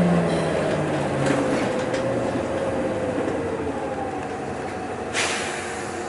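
City bus engine and drivetrain heard from inside the cabin, the whine falling in pitch as the bus slows toward a red light. A short hiss of air about five seconds in.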